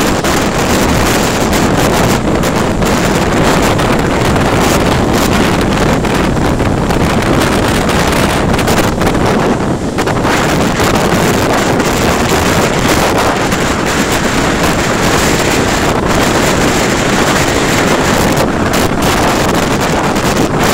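Strong gale buffeting the microphone with a loud, steady rush and rumble, over rough sea surf breaking and spraying against a seawall.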